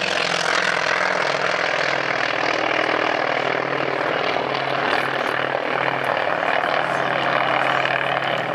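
P-51 Mustang flying past, its liquid-cooled Merlin V-12 engine giving a steady, loud propeller drone.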